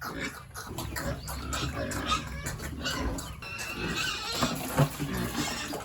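Pigs grunting continuously in a dense, irregular jumble, with one sharp knock near the end.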